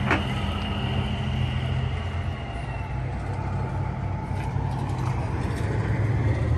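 Engine of a 1992 Freightliner toter-style truck running as it pulls slowly away across a parking lot. It is a steady low diesel drone that eases off a little after a couple of seconds.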